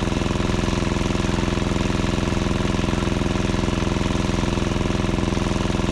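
Generator engine running steadily at constant speed, with a fast, even pulse.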